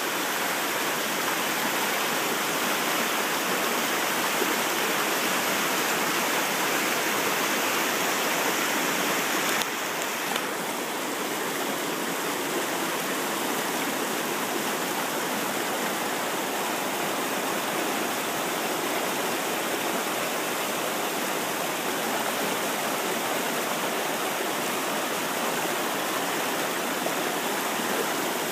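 Mountain stream flowing, a steady rush of water that drops slightly in level about ten seconds in.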